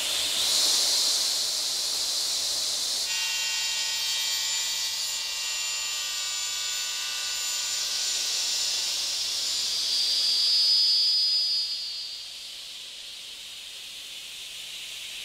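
Sliding table saw's circular blade running at speed with a high-pitched whine and hiss as it cuts through wood. Near the end the whine drops away, leaving a quieter steady hiss.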